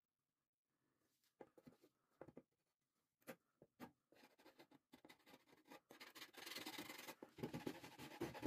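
Gloved hands rubbing a steel knife blade cut from an old saw blade: a few light handling knocks, then continuous scratchy rubbing from about four seconds in, growing louder near the end.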